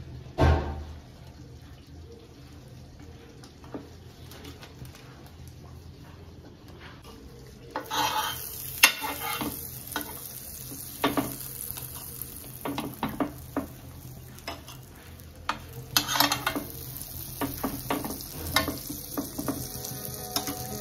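Butter sizzling in a hot non-stick grill pan from about eight seconds in, while pav buns are laid and pressed onto it, with scattered knocks and scrapes against the pan. A single thump about half a second in.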